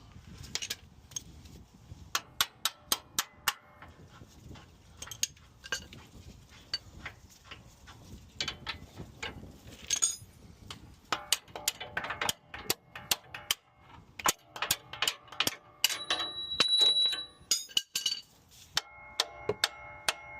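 Metal tools and steel steering parts clanking: a long run of sharp metallic clicks and knocks, in quick clusters, some ringing on briefly like struck metal, with a chiming ring near the end.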